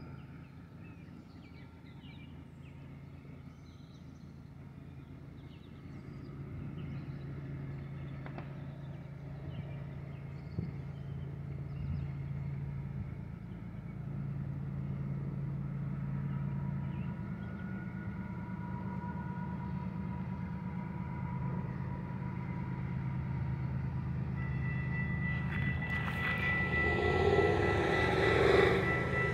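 Diesel locomotives of an approaching freight train, their engines' low rumble growing steadily louder as they come closer. Near the end, steady high tones join in and the sound swells as the lead locomotive draws near.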